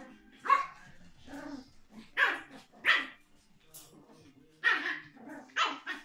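Small-breed puppies barking in play: a string of about six short, sharp yaps, some coming in quick pairs, with fainter yips between them.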